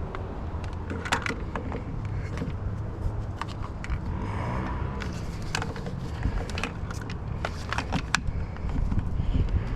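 Scattered clicks and knocks of small parts being handled while a fuel filter is removed from a mini skid steer, over a steady low rumble, with a short hiss about four seconds in.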